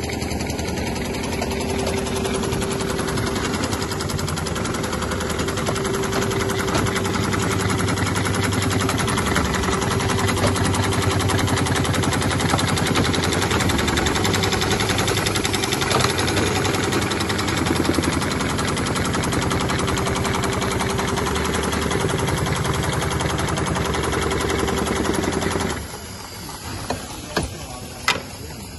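Dürkopp Adler heavy-duty industrial sewing head on an automatic belt-sewing machine, stitching continuously with rapid needle strokes over a steady motor hum. It stops abruptly near the end, followed by a few sharp clicks.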